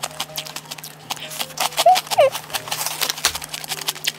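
Close-miked eating sounds: a rapid, irregular run of wet mouth clicks and smacks, with two short hummed 'mm' sounds about two seconds in.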